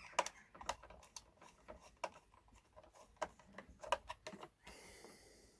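Faint, scattered clicks and taps of a flathead screwdriver working a small terminal screw on a solar charge controller, with a short hiss near the end.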